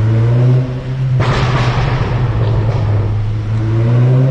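Volkswagen Golf 6 R's turbocharged four-cylinder accelerating hard at full throttle, its exhaust echoing in an underground car park. The engine note climbs, breaks briefly about half a second in, then gives way to a loud, harsh roar for a couple of seconds before climbing again near the end.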